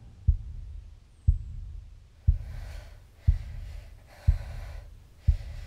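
A deep heartbeat-like thump sound effect repeating once a second, six beats in all, under a young woman's heavy, gasping breaths.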